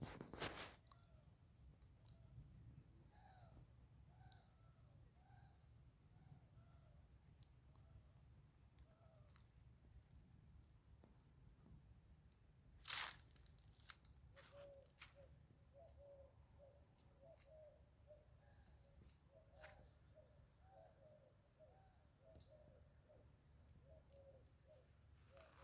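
A steady high-pitched insect trill with fine rapid pulsing. Beneath it runs a long series of short, repeated animal calls, about two a second, which grow denser about halfway through, with a sharp click about halfway.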